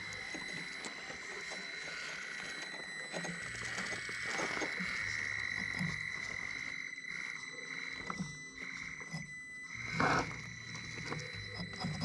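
A Traxxas TRX-4M Defender micro crawler's small electric motor and gear drive whining steadily as it crawls over rocks, its low drive hum coming and going with the throttle. The tyres knock against the rock, loudest about ten seconds in.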